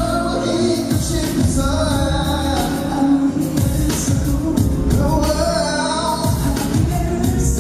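Live pop concert: a male singer singing into a microphone over a loud backing track, heard from among the audience.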